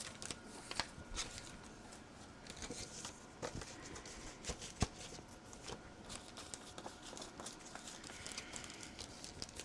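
Sheets of paper and cardstock being handled on a craft table: faint rustles and light taps, with one sharper tap a little before the middle.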